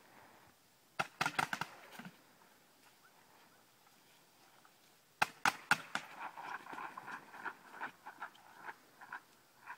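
Paintball markers firing in two quick bursts of sharp pops, about five shots a second in and four more near the middle, followed by a string of fainter, quicker pops.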